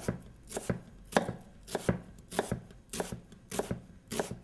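Knife cutting sweet onions on a cutting board: an even rhythm of knife strokes striking the board, about two a second.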